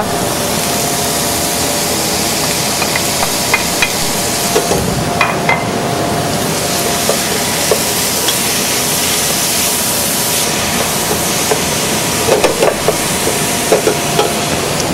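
Chopped mirepoix and ground shiitake stems sautéing with a steady sizzle in a copper saucepan while a wooden spoon stirs them, with scattered light knocks of the spoon against the pan, most of them near the end.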